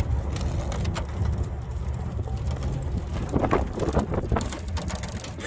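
Pickup truck rolling slowly along a snow-packed road: low engine rumble and tyre noise, with wind on the microphone.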